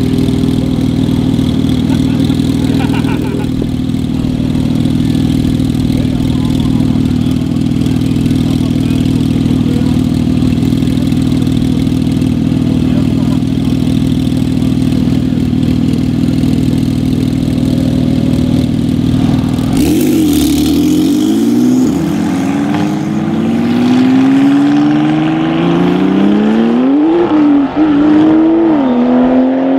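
Porsche 911 Turbo S twin-turbo flat-six running steadily for about twenty seconds. It then accelerates hard, its pitch rising through the gears, with quick drops at the shifts near the end.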